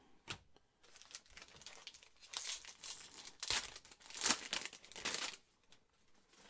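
Foil wrapper of a Panini Mosaic football card pack being torn open by hand: crinkling and tearing, loudest through the middle seconds, after a short tap near the start.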